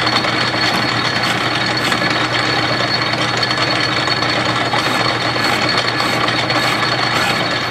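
Metal lathe running steadily at slow speed while a carbide-insert boring bar cuts the bore of a cast iron valvebody casting, with a thin steady high whine over the machine noise.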